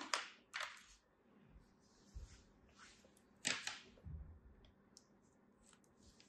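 A plastic sand mould clacking lightly onto the table, then small scissors snipping into a moulded kinetic-sand shape: a sharp pair of snips about halfway through and a few soft crumbling ticks.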